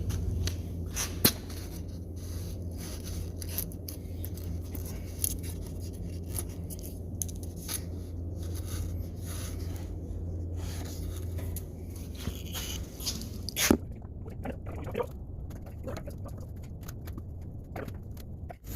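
Scattered clicks and scrapes of parts and tools being handled during an oil change, over a steady low hum, with a louder knock about a second in and another near 14 seconds.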